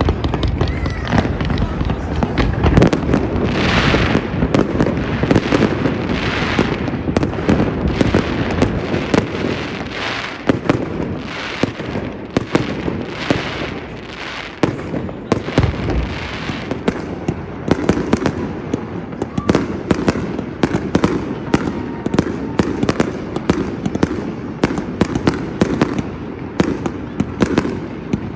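Aerial fireworks display: a continuous run of bangs and pops, with hissing, crackling swells in the first half, and the bangs coming faster and denser in the second half.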